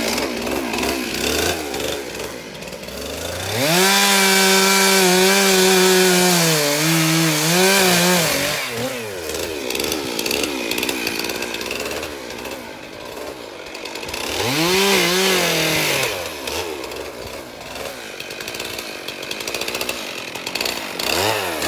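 Stihl chainsaw running. It is revved to full throttle for about four seconds, its pitch sagging slightly near the end, then drops back to a lower wavering run, with shorter revs around two-thirds of the way through and again at the end.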